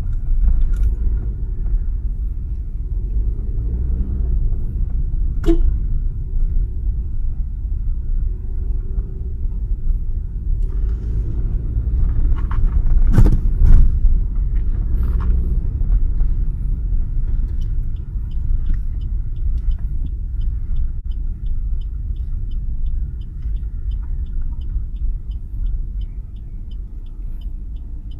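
Car cabin road noise while driving: a steady low rumble with a few knocks from bumps, loudest about halfway through. Past the middle a quick, regular ticking starts, about three ticks a second.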